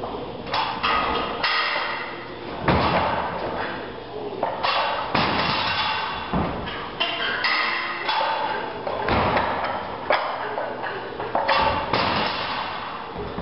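Music with a run of loud percussive hits at uneven spacing.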